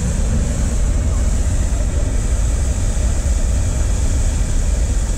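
Hot air balloon's propane burner firing continuously in a loud, steady roar while it heats the air in the envelope during inflation.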